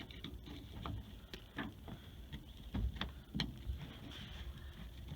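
Irregular clicks and short scrapes of a removed, grimy air brake valve being handled and cleaned off by hand, a few knocks louder than the rest.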